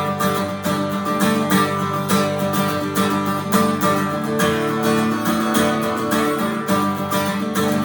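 Acoustic guitar strummed in a steady rhythm: an instrumental passage of a children's worship song.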